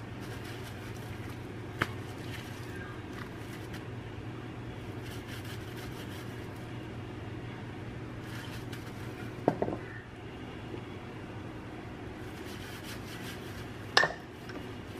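Quiet handling sounds of gloved hands rubbing seasoning into raw pork cutlets on a plate, over a steady low hum. Three short knocks stand out: one about two seconds in, a double one past the middle, and the loudest near the end.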